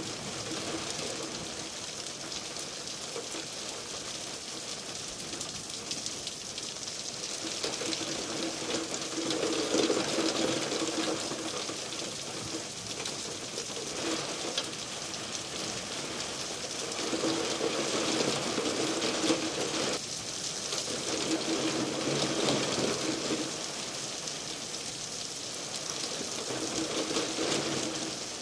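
Heavy rain falling steadily as a dense hiss, with a low hum that swells and fades every few seconds.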